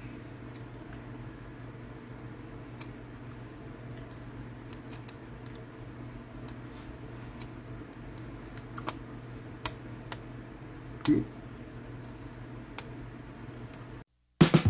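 Screwdriver turning small screws down into a spinning reel's body: scattered light clicks and scrapes over a steady low hum. The sound cuts out suddenly near the end.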